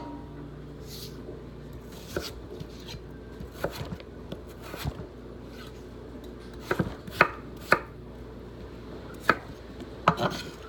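Knife chopping vegetables on a cutting board: single, irregularly spaced chops, a fraction of a second to a second or more apart, the louder strikes coming in the second half.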